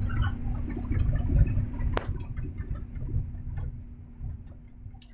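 Heavy storm rain pattering and ticking against an excavator cab, over a low rumble and a steady hum. One sharp click comes about two seconds in, and the whole sound fades down toward the end.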